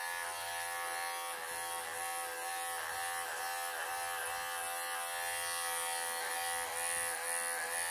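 Cordless electric pet clippers running with a steady buzz while shaving a cat's long belly fur. The pitch dips briefly several times as the blade works through the fur.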